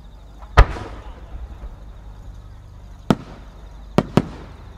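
Japanese warimono aerial firework shells going off: one loud boom about half a second in that echoes away, then three sharper bangs near the end, the last two close together.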